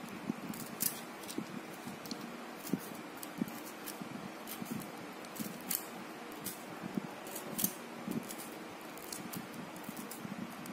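Small carving knife cutting V-grooves into watermelon rind: irregular, faint crisp clicks as the blade cuts through the firm rind, over a steady background hiss.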